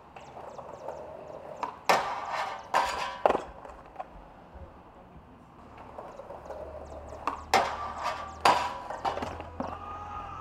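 Skateboard rolling, with two runs of sharp wooden clacks from the board being popped and landing, about three clacks in each run: one run about two seconds in, the other near the end.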